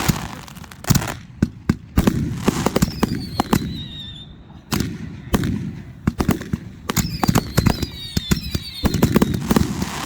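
Fireworks going off: a rapid string of sharp bangs and crackles, with two high whistles that slide slightly down in pitch, at about three seconds and again at about seven seconds.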